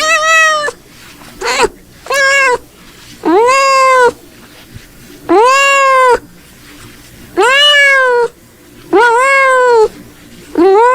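Domestic cat meowing repeatedly, about eight calls with short gaps between them, each rising and then falling in pitch. A few calls are short and the rest last just under a second.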